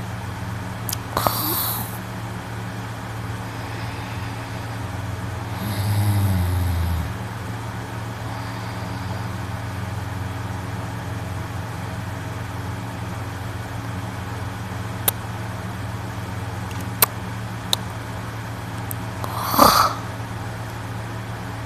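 A young man snoring in his sleep: a low snore lasting about a second and a half around six seconds in, and a louder, sharper snorting breath near the end. A steady low hum runs underneath, with a few faint clicks.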